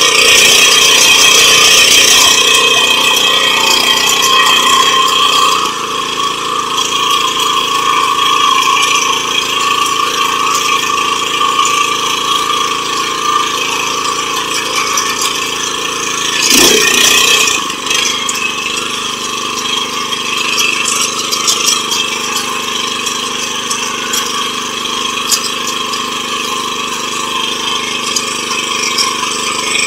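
Small engine of a 7 HP rotary tiller (power weeder) running steadily under way. It runs louder for the first five or so seconds, then eases off, and briefly revs up and back down about seventeen seconds in.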